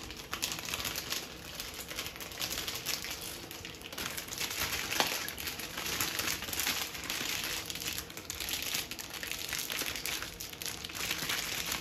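Thin plastic freezer bag crinkling and rustling continuously as it is wrapped around a hand-held shower head, with many small crackles from the handling.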